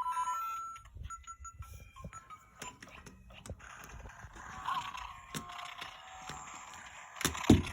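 Electronic sound effects from an interactive Lego Mario figure's speaker: short beeps and chirps, with clicking and clacking of plastic pieces and a loud knock near the end.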